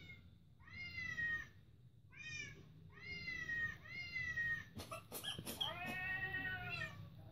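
A cat meowing: a run of short meows, each falling in pitch, then a few clicks and a longer, drawn-out meow near the end.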